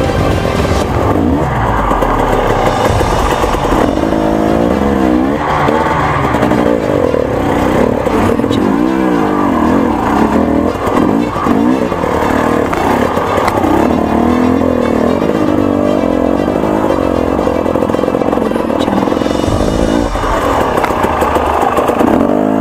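KTM two-stroke enduro dirt bike engines revving up and down repeatedly, the pitch rising and falling throughout, with music underneath.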